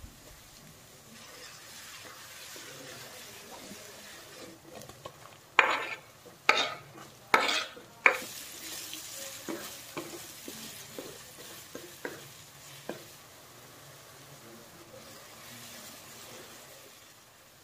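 Chopped ginger and garlic sizzling in hot oil in a kadai. About five and a half seconds in, chopped onion goes into the oil with four loud bursts of sizzling. After that a spatula stirs the onion around the pan with scattered light knocks and scrapes over a steady sizzle.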